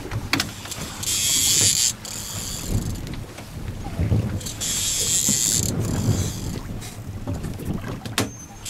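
Fishing reel's drag buzzing in two bursts of about a second each as a hooked striped bass strips line off the reel, over the low rumble of the trolling boat.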